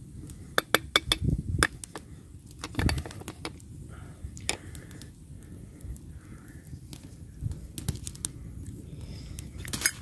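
Metal camp cookware clinking and a carved wooden spoon tapping against it as ground coffee is spooned into a percolator basket. There is a quick run of sharp clicks about half a second to two seconds in, and more clinks later and near the end.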